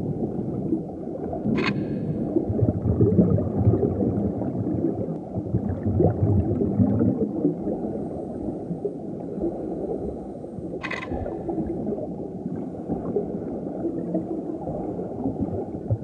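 Low, churning underwater rumble and gurgle of water, broken twice by a short sharp crunch, about two seconds in and again about eleven seconds in: a bumphead parrotfish's beak biting into coral.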